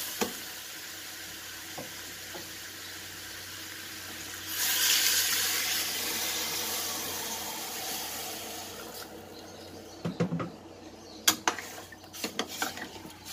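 Water poured from a pot into a hot stainless stockpot of sautéed pork bones, onions and tomatoes: a steady sizzle, then about four seconds in a loud rush of pouring water that fades slowly over several seconds. Near the end a metal ladle clinks against the pot several times as the broth is stirred.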